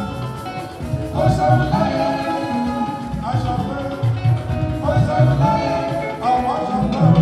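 Jùjú band music playing loudly: a male lead singer delivers phrase after phrase over a steady bass beat and guitars.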